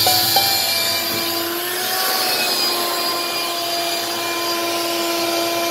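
Wet-dry shop vacuum running steadily with a constant motor whine, sucking up standing floodwater through its hose.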